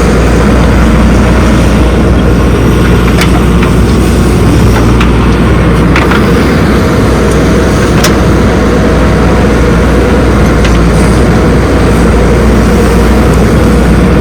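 Heavy diesel machinery engine running steadily at close range, with a few short sharp knocks.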